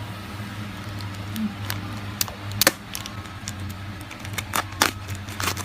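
Hands handling an unboxing package, making irregular small clicks and taps over a steady low room hum, with a couple of sharper snaps near the middle and end.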